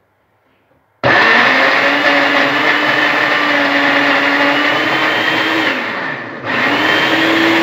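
Countertop blender starting about a second in and running on a thick, dry mix of banana, ice cream and protein powder with no liquid added. Near the end it cuts out briefly, its pitch sagging, then starts again.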